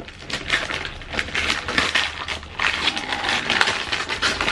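Gift wrapping paper crinkling and rustling in a run of irregular crackles as a present is pulled open by hand.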